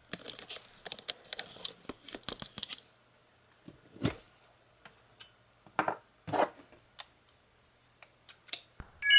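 Handling noise from a charging setup: cables rustling and scraping as a USB wall charger is pulled from an outlet, then several sharp clicks and knocks as a USB current meter is plugged into a power bank. Near the end comes a short bright electronic chime, the loudest sound, as the iPad connects to power.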